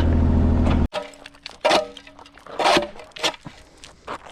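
Engine of the loading equipment running steadily, cut off abruptly about a second in; then a run of separate clanks and scrapes, with a few louder knocks, typical of concrete rubble being handled.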